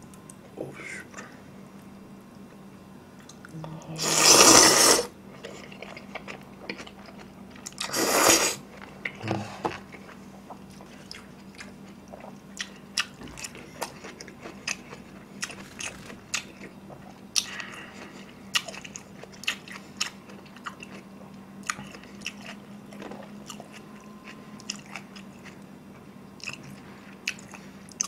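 Close-miked eating of black-bean noodles and crispy sweet and sour pork: two loud slurps about four and eight seconds in, then steady chewing with many small wet clicks and crunches.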